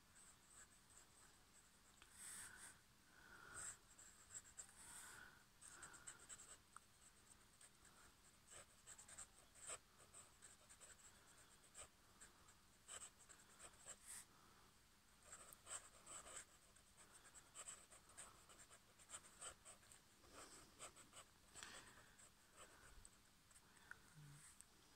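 Pen tip scratching on paper in quick, irregular scribbling strokes as shading is filled in, faint throughout.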